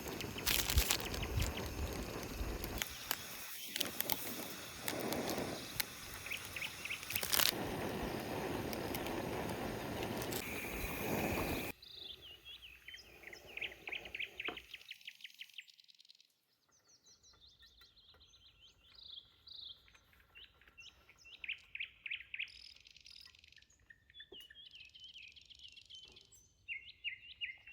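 Rain and gusty wind, a loud even hiss with scattered ticks, which cuts off suddenly about twelve seconds in. After the cut, small birds chirp and sing in short repeated phrases against a quiet background.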